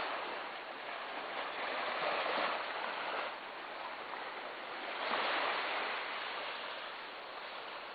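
Small sea waves washing, an even rush of water that swells about two seconds in and again about five seconds in.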